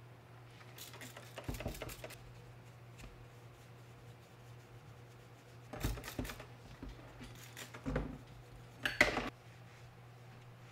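Trigger spray bottle of glass cleaner spritzing in a few short bursts onto a leather steering wheel, the loudest near the end, with cloth-wiping and handling noises; a steady low hum underneath.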